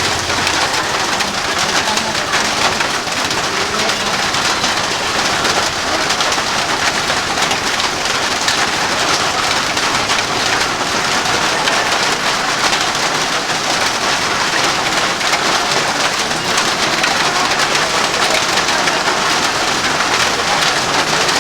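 Steady rain falling, an even hiss of many drops that holds level without a break.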